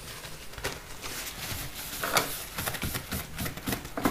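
Rustling and rubbing of a cloth being handled and wiped for cleaning, with irregular light scrapes and taps.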